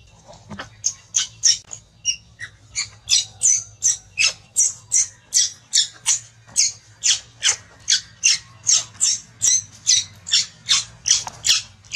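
Baby monkey shrieking over and over in distress, about three short, high-pitched cries a second, each dropping in pitch, starting just under a second in.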